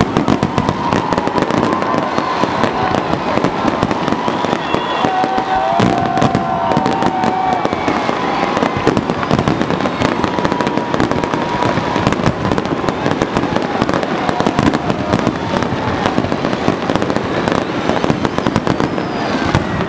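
Fireworks display going off without let-up: a dense run of sharp bangs and crackles from aerial shells bursting and ground fountains firing. A few faint held tones run over the bangs.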